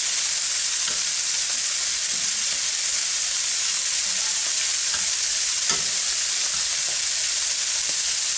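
Raw king prawns sizzling steadily in hot olive oil in a nonstick frying pan, with a few faint scrapes and taps as a spatula and fork turn them so they just take colour.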